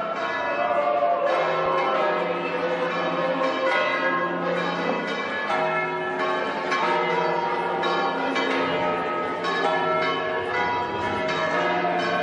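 Church bells ringing a peal: several bells struck one after another, their tones overlapping and ringing on without a break.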